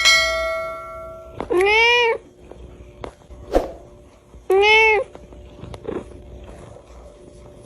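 Domestic cat meowing twice, each meow about half a second long, rising and then falling in pitch. A ringing, bell-like tone starts sharply at the very start and fades away over about a second and a half, and a short sharp click falls between the two meows.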